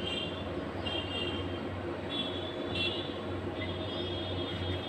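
Steady city traffic noise with a constant low hum, and high-pitched tones coming and going several times.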